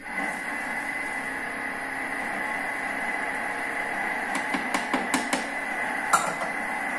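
Thermomix kitchen robot running steadily at mixing speed, its motor giving a constant whine as the blades mix the dough. Around the middle a few light clicks, with one sharper knock about six seconds in.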